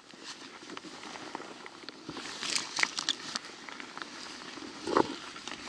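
Hiking boots stepping on rocky mountain trail, with irregular clicks and scrapes of stone and gravel underfoot. A louder knock comes about five seconds in.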